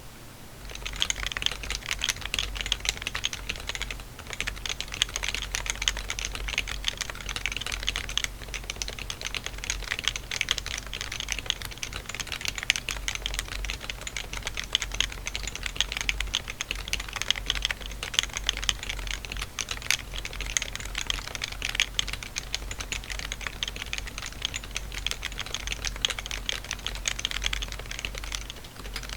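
Fast typing on a Topre Realforce 87U keyboard fitted with 45g domes from an HHKB and shelf liner in the case: a dense, continuous stream of keystrokes starting about a second in, with brief lulls around 4 and 8 seconds in.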